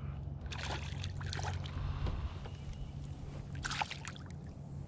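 A hooked fish splashing and thrashing at the water's surface beside a boat as it is played to the hull, a few separate splashes with the biggest near the end. A low steady hum of an electric trolling motor runs underneath.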